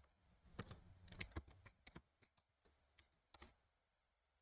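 Faint computer keyboard typing: scattered key clicks, busiest in the first two seconds, stopping about three and a half seconds in.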